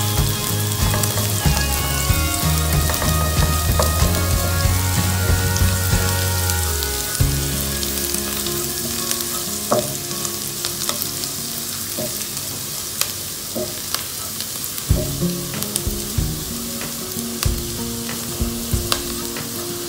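Oil sizzling as chopped garlic, ginger, green chillies and dried red chillies fry in a nonstick pan, with a silicone spatula stirring and scraping through them and giving scattered light clicks.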